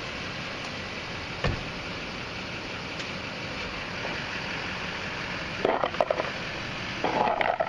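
Steady hum of a vehicle engine idling, with a sharp click about a second and a half in and a cluster of louder knocks and rattles near the end.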